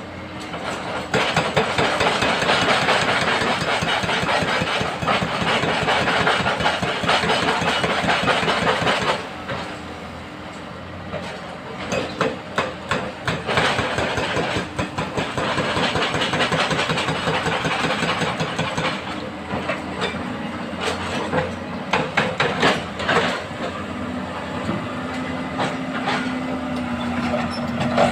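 Heavy diesel machinery running while excavators load sand into a dump truck: two long rushing spells of sand pouring from the bucket into the truck bed, with clusters of knocks and clatters between them over a steady engine hum.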